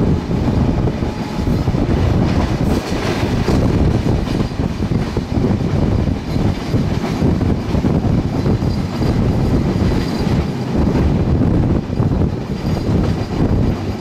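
PT INKA-built passenger coach running along the track at speed, heard from aboard: a steady rumble of wheels on rail with faint clatter, and a brief louder rattle about three seconds in.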